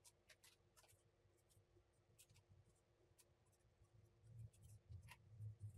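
Near silence: faint room tone with a few soft scattered ticks, and a faint low hum that comes and goes from about four seconds in.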